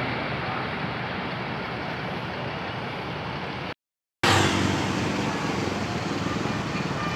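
Bus engine and road noise fading away after a bus passes, with no horn sounding. About four seconds in, the sound cuts out for half a second and comes back as the engine noise of another bus, louder and steady.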